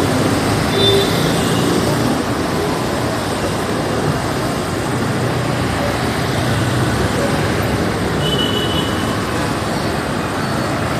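City road traffic: a steady roar of vehicle engines and tyres moving along the road, with a low engine hum rising and falling as vehicles pass. A brief faint high tone sounds about eight seconds in.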